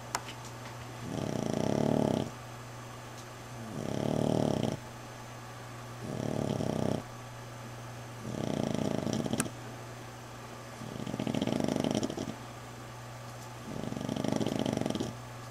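Sleeping dog snoring: six snores, one about every two and a half seconds, each lasting a second or so, over a steady low hum.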